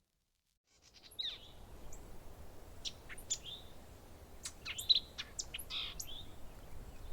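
Small birds chirping, short high calls and quick down-sweeping notes over a faint steady background hiss, starting about a second in after a brief silence.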